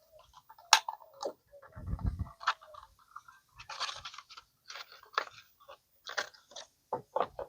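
Plastic parts of an SUV's front light housing being worked loose by hand: scattered clicks, scrapes and crunches of plastic, with a low thump about two seconds in.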